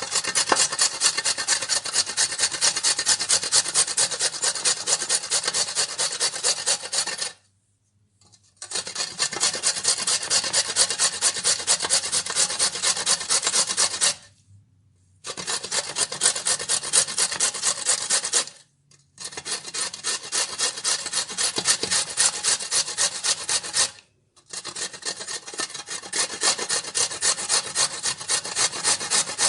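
Vegetables being grated on a grater: rapid, even strokes in five long runs, each broken off by a short pause.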